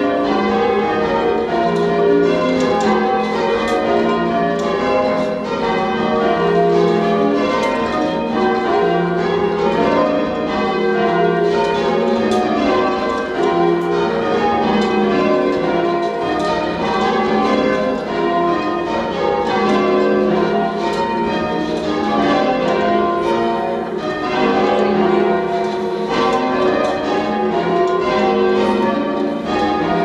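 Church tower bells being change-rung by a band pulling on the ropes: a continuous, steady stream of overlapping bell strikes, heard from the ringing room beneath the bells.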